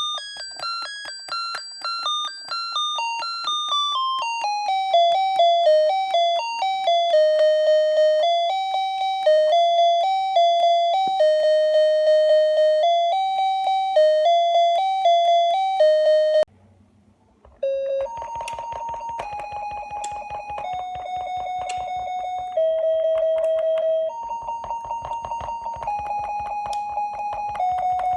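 Electronic chime-like beeps, one short pure note per key press, each press a different pitch so the repeated key spells out a melody: a fast descending run settles into a tune. After a short break about sixteen seconds in, the tones go on as longer held notes stepping between pitches, with a rapid clicking of the key being tapped underneath.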